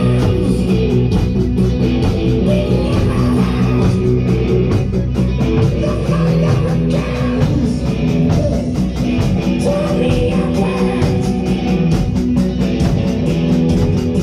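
Acoustic drum kit played to a hard-rock backing track with electric guitar and singing: a steady driving beat with cymbals over the recording.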